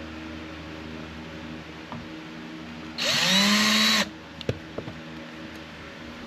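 Power drill spinning up and running for about a second while boring a small starter hole for a speaker mounting screw, then stopping suddenly. A couple of light clicks follow.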